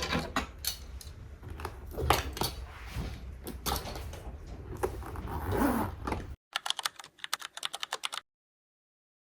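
A string of light, sharp clicks and taps, irregular at first over a low background rumble. About six seconds in, the background drops away and a quick, even run of typing-like clicks follows, then the sound cuts out to silence.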